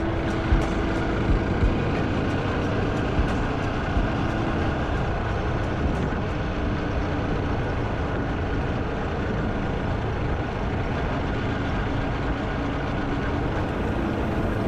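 Motorcycle riding along a road: a steady rush of engine and wind noise on the microphone, with a few short knocks in the first few seconds.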